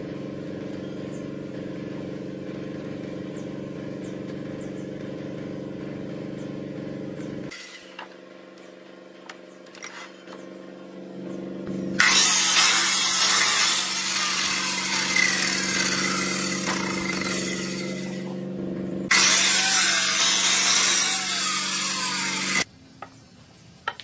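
Chainsaw engine running steadily, then cutting into wood twice: a long cut of about seven seconds and a shorter one of about three, stopping suddenly near the end.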